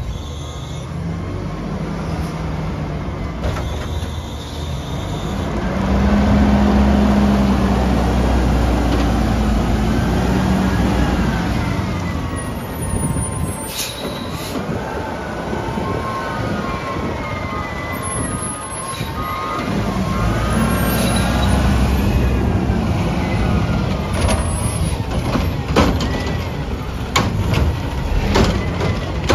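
Front-loader garbage truck with a Curotto-Can arm: the diesel engine revs up to drive the hydraulics as the can is raised and dumped over the cab, with a wavering hydraulic whine and a metallic bang about halfway through. Near the end there are several sharp clanks as the can's arm works at the carts.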